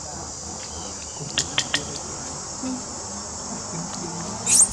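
Steady high-pitched chorus of forest insects, with a few short sharp chirps about a second and a half in and a brief, louder high squeal near the end.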